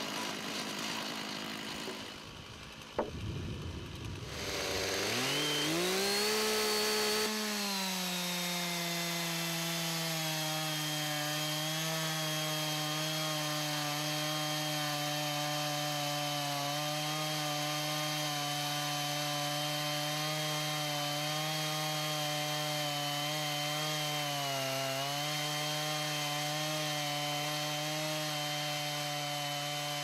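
Chainsaw on a chainsaw mill revving up about five seconds in, then running steadily at high revs under load as it rips lengthwise through a log. Its pitch sags briefly near the end.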